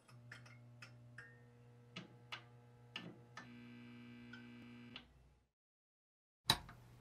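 Faint logo intro sound: a string of sharp ticks and clicks over a low steady hum. It cuts off about five seconds in, and a sharp hit follows near the end.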